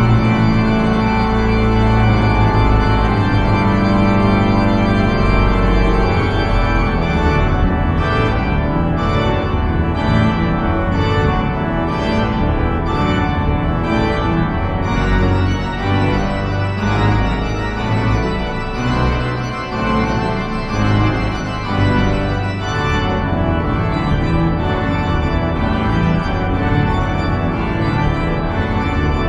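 An organ playing music in full, sustained chords, the notes changing every second or so, with a deep bass line under them.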